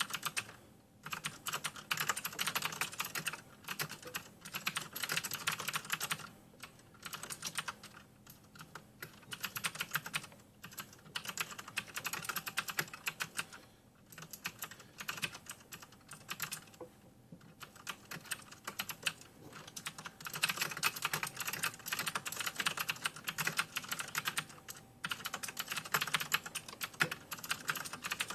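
Typing on a Ducky 9008 mechanical keyboard with Cherry MX Blue switches: rapid runs of sharp, crisp key clicks in bursts of a few seconds, with short pauses between them.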